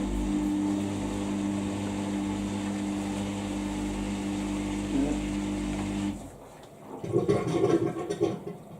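Samsung EcoBubble washing machine's pump humming steadily with water rushing through, then cutting off abruptly about six seconds in. A short spell of irregular louder knocking and rustling follows near the end.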